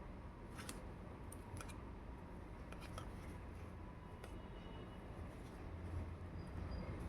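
Handling of a toy makeup kit and its packaging: a few light, sharp clicks and snips scattered over a faint low hum.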